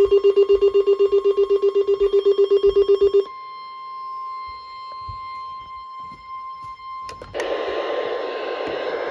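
NOAA weather alert radio sounding its severe thunderstorm warning alarm: a loud, rapid beeping of about nine beeps a second that stops after about three seconds. A fainter steady high warning tone follows, and about seven seconds in, radio static hiss comes in under it.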